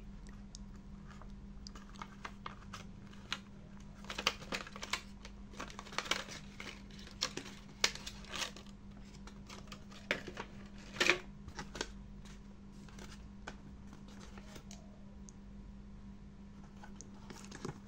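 Small cardboard box with a plastic blister insert being handled and opened by hand: irregular clicks, crinkles and rustles, busiest in the middle, over a faint steady hum.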